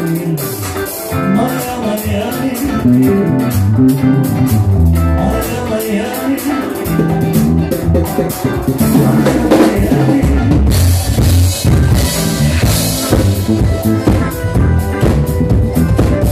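Electric bass guitar playing a busy line of moving low notes over a live drum kit groove. The cymbals get louder about two-thirds of the way through.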